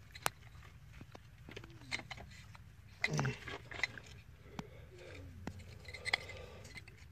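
Faint, scattered clicks and scrapes of a plastic ignition coil being pushed down onto its spark plug and its wiring connector handled, over a steady low background hum.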